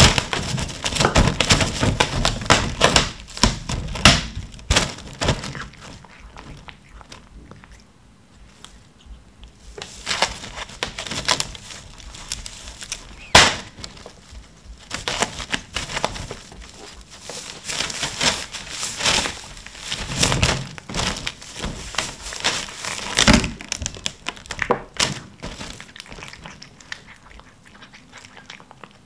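Clear plastic film crinkling and crackling in irregular bursts as a cat paws, claws and pushes its head through it, with a few sharper knocks, the strongest about thirteen seconds in.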